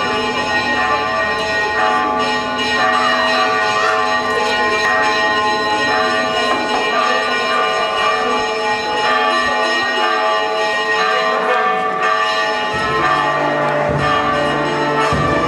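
Church bells pealing continuously, a dense wash of overlapping ringing tones. A low steady tone joins near the end.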